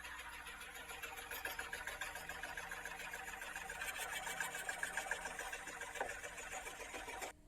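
Homemade scroll saw running, its blade moving up and down rapidly with a steady, fast-repeating chatter like a sewing machine. It cuts off suddenly near the end.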